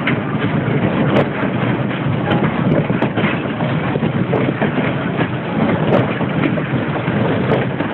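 Fairground car ride running: a steady mechanical din with scattered clicks and clatters as the cars whirl around the platform.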